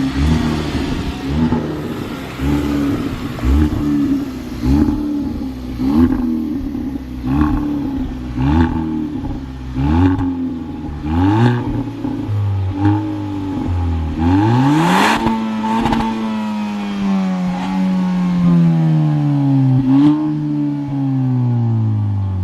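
Exhaust of a 2021 Kia Forte GT's 1.6-litre turbo four-cylinder with the resonator deleted, heard from outside the car: a string of short revs about once a second, each ending in a sharp crack. About two-thirds through comes one longer rev with a loud crackle, then the revs fall slowly.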